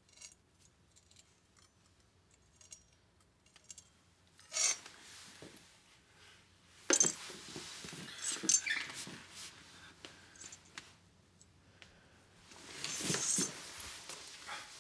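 Film sound effects of a creature's clawed fingers clicking and scraping at the gap under a pantry door, with a kitchen knife being handled against it. Faint scattered clicks give way to a sharp noisy burst about four seconds in, then louder knocks and scuffling, with another loud stretch near the end.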